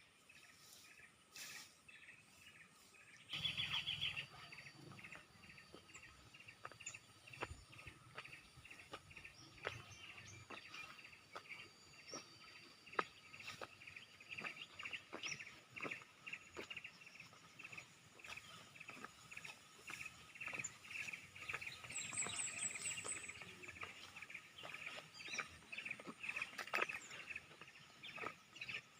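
Birds chirping over and over in a steady repeating pattern, with a brief rapid high trill about 22 seconds in. Faint scattered ticks and taps run underneath.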